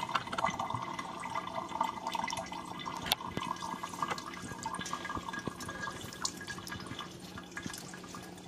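Lime juice dripping and splashing lightly into a bowl of water as a lime is squeezed over it, small irregular drips, over a steady low hum.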